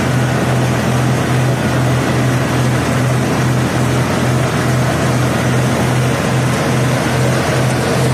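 A 50 HP John Deere tractor's diesel engine running steadily under load, powering a tractor-mounted mini combine harvester as it cuts paddy; a loud, even throb with dense machinery noise over it.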